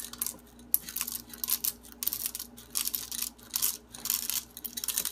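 Whole coffee beans being poured into the hopper of a stainless steel manual burr grinder, a quick, irregular rattle of many small clicks that comes and goes in short spurts.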